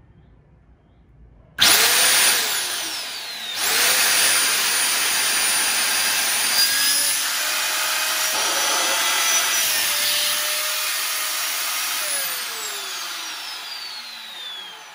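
Bare Samsung 220 V, 1,380 W vacuum cleaner motor switched on at full power about a second and a half in with a loud rushing whine. It drops off briefly and starts again about two seconds later, then runs steadily. Near the end it is switched off and winds down with a falling whine.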